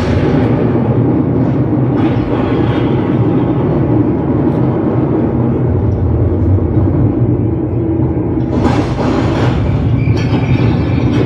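A loud, steady deep rumble played as a dramatic sound effect through the stage speakers, with a brief hiss about nine seconds in.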